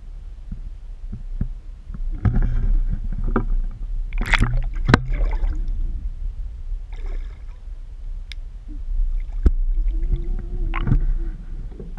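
Muffled water sloshing and gurgling around a half-submerged camera housing on the side of a small boat, over a steady low rumble, with a few sharp knocks in the middle and later on.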